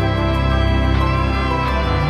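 Instrumental background music with sustained held notes and a deep bass.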